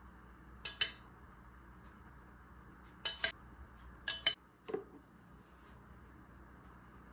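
Spoon and dishes clinking: one clink about a second in, two quick pairs around three and four seconds in, then a dull knock.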